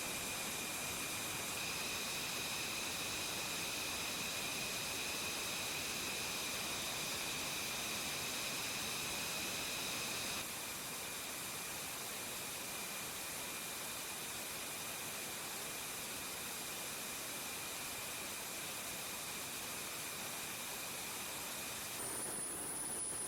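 Jet engine running on the ground: a steady rushing noise with a high turbine whine. It drops slightly in level about ten seconds in, and near the end a higher-pitched whistle takes over.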